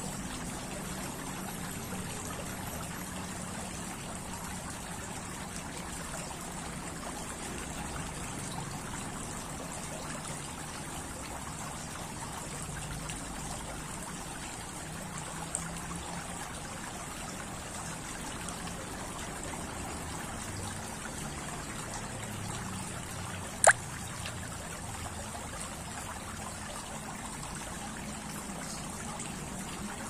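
Tiered stone garden fountain: water trickling steadily down its bowls into the basin. One sharp click sounds late on.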